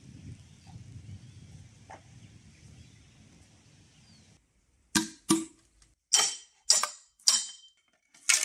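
Faint outdoor ambience, then a large knife chopping into and splitting a bamboo pole: five sharp cracks about half a second apart, and a longer cracking split near the end.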